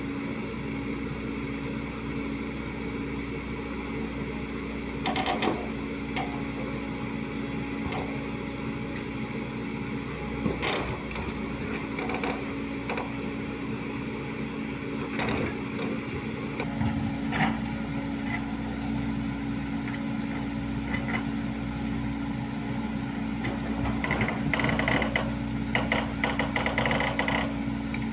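Volvo crawler excavator's diesel engine running steadily, with occasional sharp metallic knocks and a run of clattering near the end.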